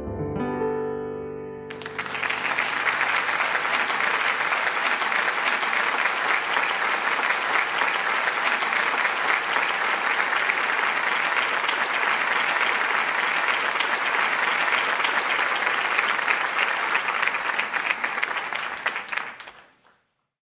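The last notes of a song ring out and fade, then steady applause runs for about seventeen seconds and stops abruptly near the end.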